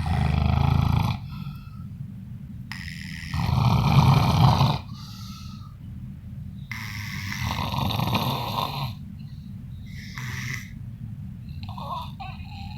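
A father and his young child snoring in their sleep: three long rasping snores about three and a half seconds apart, then a couple of shorter, fainter ones near the end.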